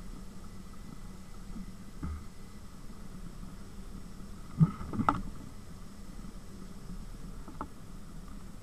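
Steady airflow noise and a low hum on a camera mounted to a hang glider in flight, with a few short knocks, the loudest pair about halfway through.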